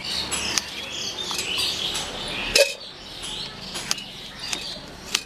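Kitchen knife slicing a guava against a wooden cutting board: scattered sharp taps of the blade on the board, the loudest about two and a half seconds in, with birds chirping in the background.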